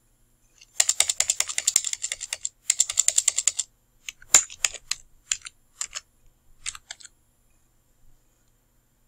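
Typing on a computer keyboard: a fast, dense run of keystrokes for about three seconds while a search entry is erased, then slower single keystrokes as a few letters are typed, stopping about seven seconds in.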